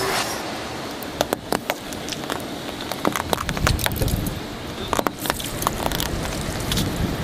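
A car's tyres rolling slowly over brittle objects and crushing them: a run of irregular sharp cracks and crunches over a low rumble.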